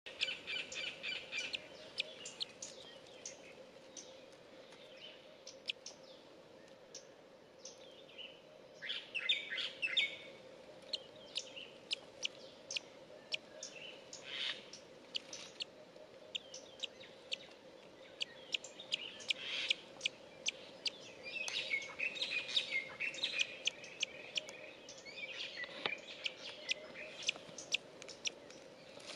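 Several downy eagle chicks calling from the nest: rapid, repeated high-pitched chirps and cheeps that come in clusters, over a faint steady hum.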